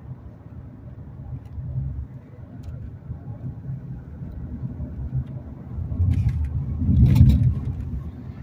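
Car driving at speed: a steady low rumble of road and engine noise, heard from inside the car. About six seconds in it swells, loudest for a moment around seven seconds, then settles back.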